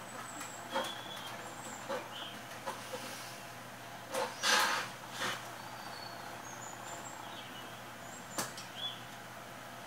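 Scattered clicks and knocks of hands and tools working on a circuit board during soldering, with a louder rustling burst about four and a half seconds in. Brief high chirps come and go over a steady low hum.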